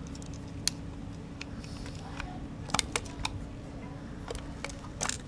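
Handling of a Canon F-1 35mm SLR film camera as its back is opened to the film compartment: a string of scattered small clicks and knocks, over a steady low hum.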